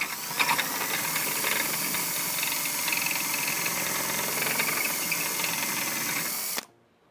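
Power drill spinning a step drill bit through a hole, enlarging it, with a steady motor whine under the cutting noise; it runs for about six and a half seconds, then stops suddenly.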